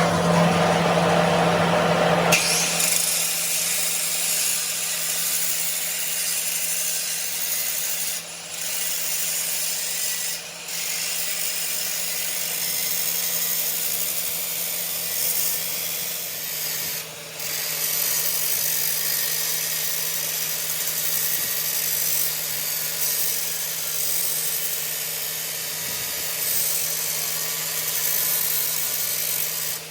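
An electric power tool working metal, running steadily with a hum and a high hiss. It is loudest in the first couple of seconds and eases off briefly three times.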